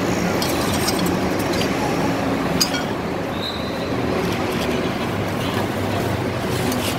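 Steady road traffic noise, with a few light clinks and clicks among it, the sharpest one about two and a half seconds in.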